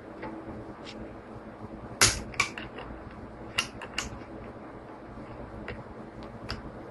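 Sharp clicks and taps of hands and a small metal tool working on a wooden model ship hull whose planks are held by rubber bands. The loudest click comes about two seconds in, a few more follow within the next two seconds, and there are faint ticks in between, over a low steady hum.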